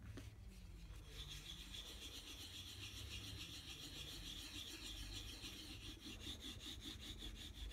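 Wooden hand burnisher rubbed briskly back and forth over printmaking paper on an inked plexi plate: a faint, continuous scratchy rubbing in quick strokes that starts about a second in. This is hand-burnishing a monoprint without a press, pressing the ink onto the paper.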